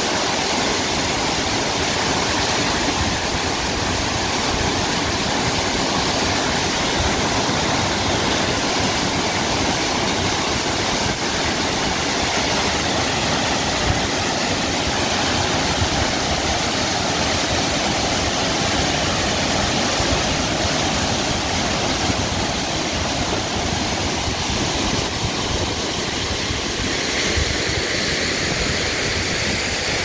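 Large waterfall pouring down a steep rock face into a plunge pool: a loud, steady rush of falling and churning water.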